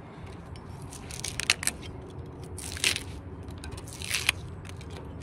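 A handful of short, sharp scrapes of metal on the freshly cut edge of a stove-flue hole in a steel narrowboat roof, as the cut edge is cleaned up by hand.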